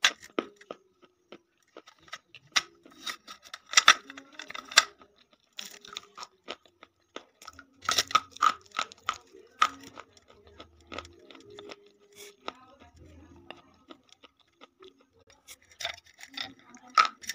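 Sticks of chalk being bitten and chewed: sharp, crisp crunches coming in clusters, with quieter chewing between them.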